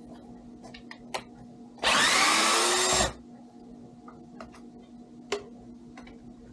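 Cordless drill-driver with a hex bit whirring for about a second, its whine rising as it spins up, backing out a shock mount bolt. A few light metallic clicks of the tool and bolts being handled.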